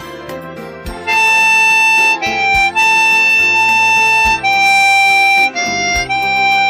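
Harmonica playing a slow melody of long held notes over a backing accompaniment with bass; the harmonica comes in about a second in.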